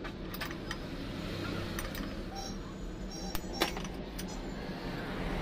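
Metal hand tools and small metal parts clinking and clicking as they are picked up and handled on a workbench: about eight sharp, irregular clinks over a steady low hum.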